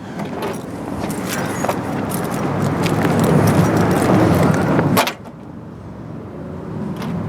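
Rustling, clicking movement and handling noise growing louder over several seconds, cut off by a single thump about five seconds in, then a quieter rustle.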